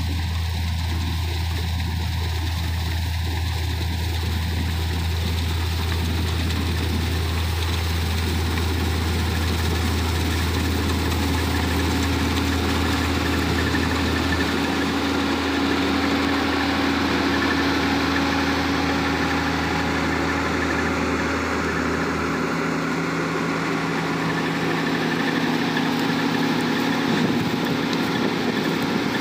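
M132 combine harvester running steadily while cutting wheat, its engine and threshing machinery going together, with the clatter of a loose feeder house chain. Partway through, a steadier higher-pitched whine comes in and the low hum fades.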